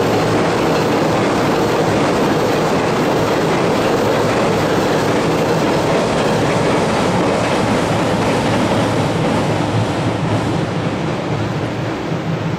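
Container wagons of a long freight train rumbling and clattering steadily across a steel girder railway bridge. The sound begins to fade near the end as the tail of the train moves away.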